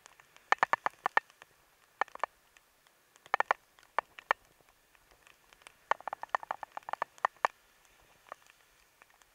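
Clusters of sharp clicks and taps picked up through an action camera's waterproof case, in quick bursts of several ticks with the densest run near the end, over a quiet background.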